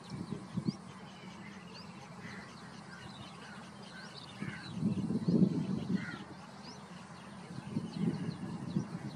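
Wild birds chirping and calling with short high notes. Low rumbling sounds come about half a second in, more strongly around five to six seconds in, and again near the end.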